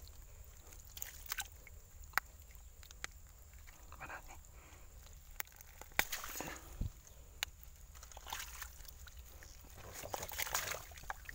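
A hand digging into wet mud and shallow water at a ditch bank, with irregular sloshing and squelching and scattered sharp clicks.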